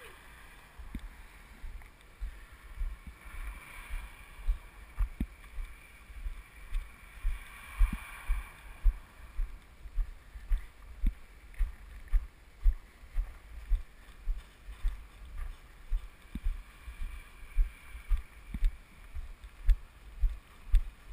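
Footsteps as the plane is carried: dull low thumps about two a second, picked up through the airframe by the camera mounted on it, with faint wind hiss.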